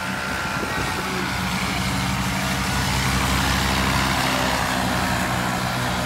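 Paramotor (powered paraglider) engine running steadily as it flies over, a low hum under a steady hiss.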